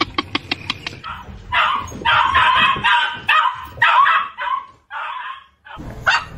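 A dog vocalizing in a rapid, rhythmic string of short yelps, about seven a second, that stops about a second in. Then a dog barks in a run of rougher, irregular barks.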